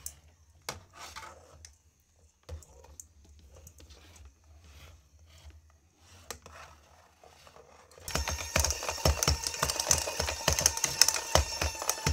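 Motorized ball cat toy with a furry tail, run from a bench power supply. At low voltage it gives only faint clicks over a low hum; about eight seconds in, overdriven at 15 volts, its motor and gears start to whir and rattle loudly as the ball spins and clatters on the floor.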